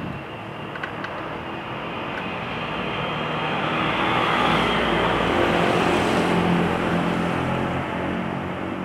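Street traffic, with a motor vehicle passing close by: the rushing engine-and-tyre noise builds to its loudest about halfway through and then fades.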